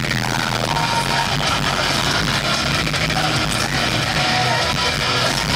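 Live rock band playing loud in an arena, with electric guitar to the fore, heard from the stands.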